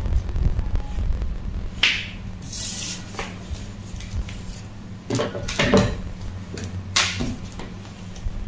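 A few light knocks and clatters of sewing tools being set down and picked up on a wooden table: a plastic French curve, a disc of tailor's chalk and scissors. A steady low hum runs underneath.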